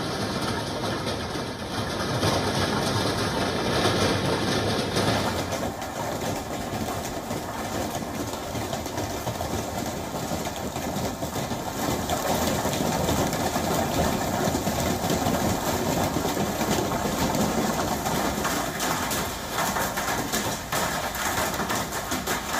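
Hailstones and heavy rain falling hard, a dense continuous clatter of impacts, its character shifting about five seconds in.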